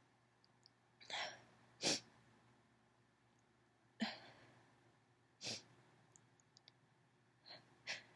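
A woman's stifled sneezes and sniffs during an allergy sneezing fit: about six short, sharp bursts, the loudest about two seconds in.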